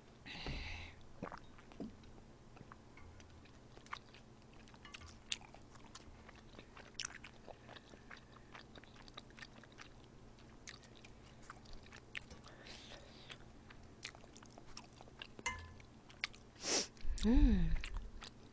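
Close-miked eating of udon noodles and broth: quiet chewing and slurping with small clicks of a ladle and chopsticks against the bowl. Near the end comes a louder slurp and a short vocal sound falling in pitch.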